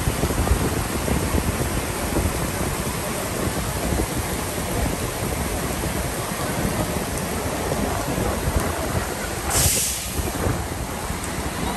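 Torrential rain pouring onto pavement, with gusting wind buffeting the microphone. A short, sharp hiss stands out near the end.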